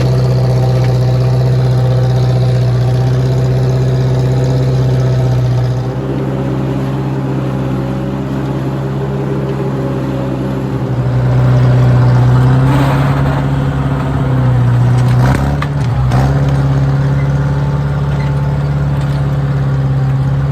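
Massey 50 tractor engine running steadily while pulling a two-furrow plow. Its note drops about a quarter of the way in, picks up again about halfway, and dips briefly once more before settling.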